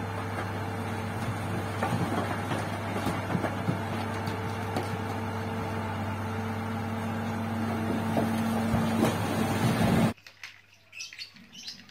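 Heavy tipper dump truck's diesel engine running steadily while its raised bed tips out a load of rock, with scattered knocks over a rough rumbling haze. The sound cuts off suddenly about ten seconds in.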